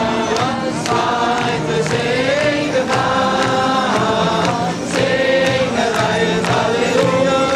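A Dutch-language song: a voice singing lyrics over instrumental accompaniment.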